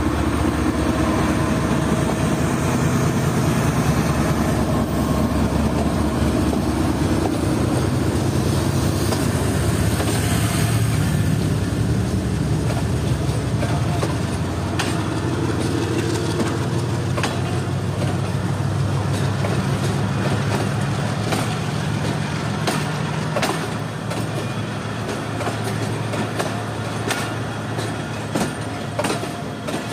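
GEU-40 class diesel locomotive 9012 pulling away with its engine running steadily, followed by the passenger coaches rolling past. The coach wheels click over the rail joints, and the clicks come thicker toward the end as the train gathers speed.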